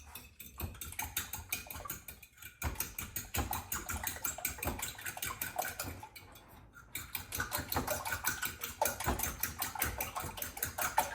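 Raw eggs being beaten in a bowl, a utensil clicking rapidly against the bowl's sides. It stops briefly about six seconds in, then starts again.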